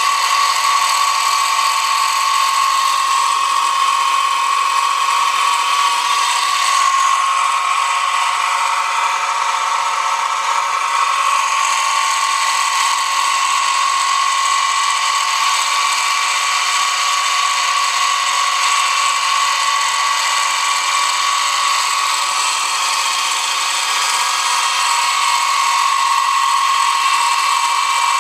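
Milling machine running steadily with a shop-made single-tooth cutter, cutting a cog-belt tooth into a wheel blank. It is a constant high whine over an even hiss, with no pauses.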